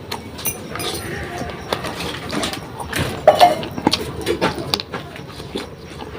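Close-up eating sounds: chewing and lip smacking with irregular wet clicks, plus a brief mouth sound a little after three seconds.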